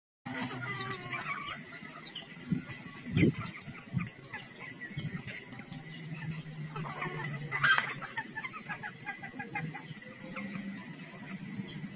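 Chickens in a farmyard: many short high chirps and peeps throughout, with occasional low clucks. There is a loud low bump about three seconds in, and a louder squawk a little before eight seconds.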